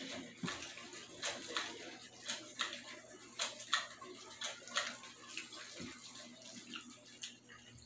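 Eating sounds: wet chewing and lip smacks from people eating with their hands, a quick irregular run of short smacks.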